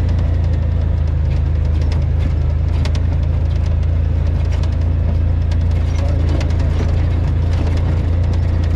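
Side-by-side UTV engine running at a steady low drone as the machine rolls along a dirt trail, with scattered ticks and crunches from the tyres over dirt, stones and dry leaves.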